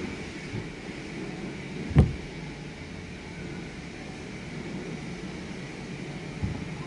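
Steady hum and hiss heard from inside a parked car, broken by one sharp thump about two seconds in and a smaller knock near the end.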